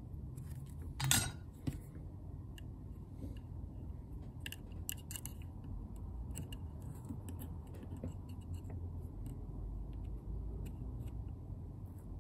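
Faint scattered clicks and ticks of hand tools working a lithium cell loose from a circuit board, with one louder crackle about a second in; a pry tool presses the cell down against brittle silicone glue.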